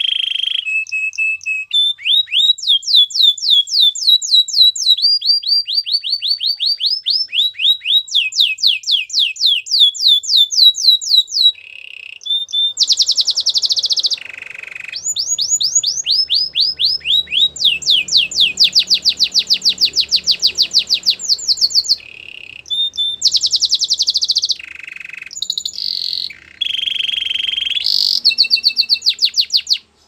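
Domestic canary singing a long song made of phrases of quickly repeated whistled notes, some sweeping down in pitch and some run together into fast rolling trills, with short breaks about 12 and 22 seconds in.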